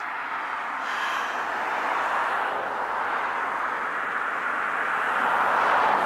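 Passing car on the road beside the sidewalk: tyre noise on the pavement swelling steadily louder as it approaches.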